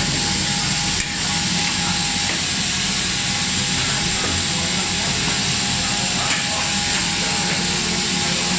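PC tube extrusion line running: a steady, even machine noise with a faint high, steady whine.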